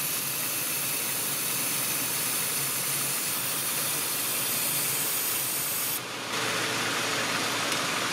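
Aerosol can of brake cleaner spraying in a long steady hiss, breaking off briefly about six seconds in and then spraying again, over the idling Audi 1.8 TFSI engine. The spray is aimed at the crankshaft seal to test whether the engine is drawing in false air there.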